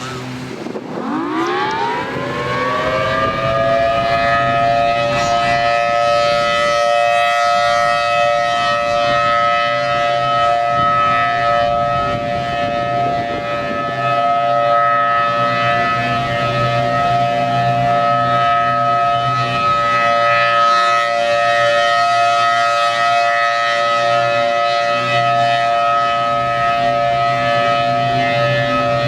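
Federal Signal Thunderbolt 1000T outdoor warning siren starting up about a second in, its pitch rising over a few seconds, then holding a loud, steady tone on test.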